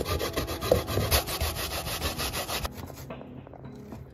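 Sweet potato being grated by hand on a stainless-steel box grater: a quick, even run of rasping strokes that stops a little under three seconds in.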